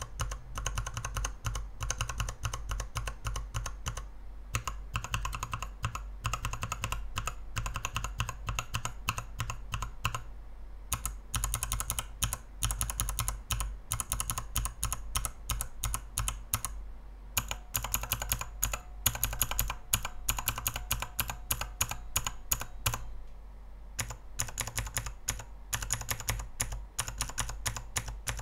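Mechanical keyboard switches on a 72-switch tester with an acrylic base and XDA-profile keycaps, pressed in quick succession as dense clacking keystrokes. The run breaks off briefly about ten, seventeen and twenty-three seconds in.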